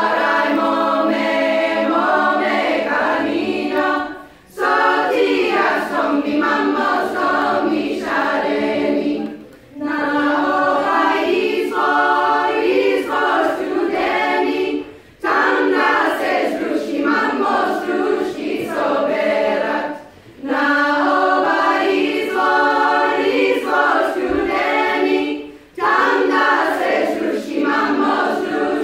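Women's choir singing a Macedonian folk song a cappella in close harmony, in sung phrases of about five seconds each, with a short pause for breath between them.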